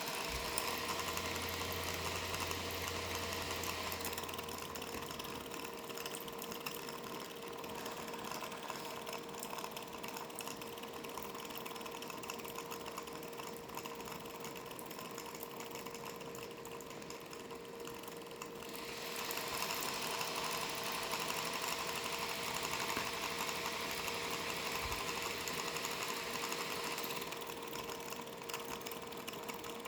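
MSI GP66 11UG gaming laptop's right-side GPU fan making a strange noise: a whir with a steady tone under it. The rushing air gets louder a little before two-thirds of the way through and eases again near the end.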